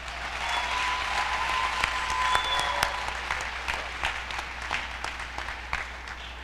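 Audience applauding, swelling over the first few seconds and then tapering off. A thin steady tone sounds over the clapping for about two seconds, starting about half a second in.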